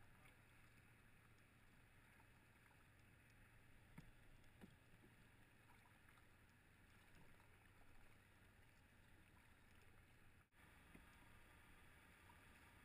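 Faint, steady water noise of a canoe gliding on a river, with two light knocks about four seconds in. The sound drops out for an instant near the end.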